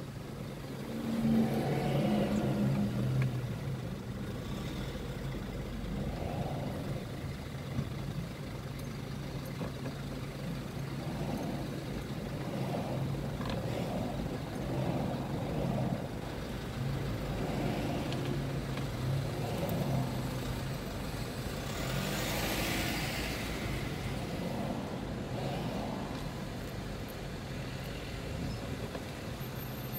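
Car engine idling and creeping in slow stop-and-go traffic, a steady low hum heard from inside the car. A brief rush of noise, like a vehicle passing close by, comes about three-quarters of the way through.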